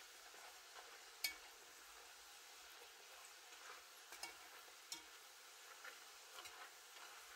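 Plantain slices deep-frying in hot oil, a faint steady sizzle, with a few light clicks as a metal fork turns them in the enamelled pot; the sharpest click comes about a second in.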